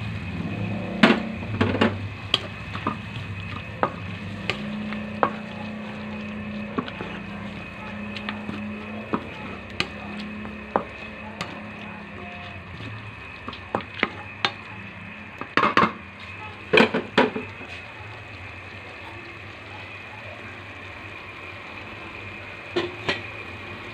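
Chicken and vegetables sizzling in a metal wok, with annatto water in the pan, while a spatula stirs, scraping and clicking against the wok in irregular clusters. A steady low hum runs underneath.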